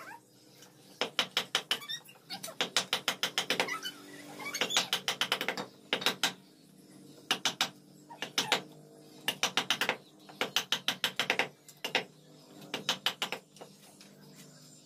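Wooden mallet striking a wood chisel's handle, cutting into a curved wooden chair piece: bursts of quick sharp taps, several a second, with short pauses between them.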